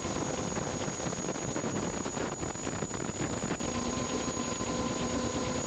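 Steady engine drone with a thin high whine over it. About three and a half seconds in it changes abruptly, and a lower steady hum joins.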